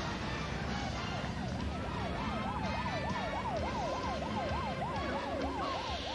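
Vehicle siren wailing quickly up and down, about three sweeps a second, starting about a second in, over a steady low rumble. A burst of noise comes in near the end.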